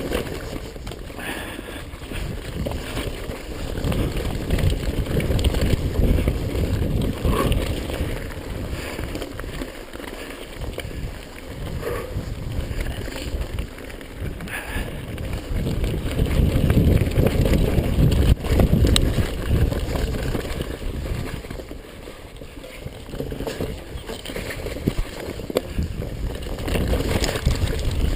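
Mountain bike being ridden down a dirt trail: tyres rolling and the bike rattling over bumps, with wind rumbling on the microphone. The loudness swells and dips with the terrain, with a few sharp knocks.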